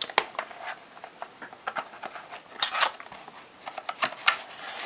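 Cardboard product box being handled and opened by hand: the outer sleeve sliding off and the inner box lid prised open, with scattered sharp taps and short scraping rustles, loudest about halfway through and again around four seconds in.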